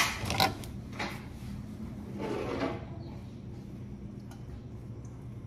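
Kitchen handling sounds: a few sharp knocks in the first second, then a short scraping slide about two seconds in, of the kind a kitchen drawer makes. After that only a low steady hum remains.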